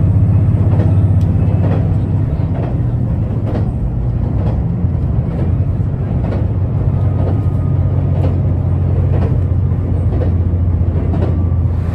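Inside a diesel train on the move: a steady, loud low drone from the engine and the wheels running on the rails, its pitch shifting slightly, with light scattered clicks from the track.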